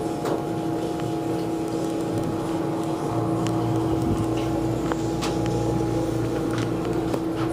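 Otis Series 1 hydraulic elevator running during a ride, heard from inside the car: a steady machine hum, with a deeper rumble joining about four seconds in.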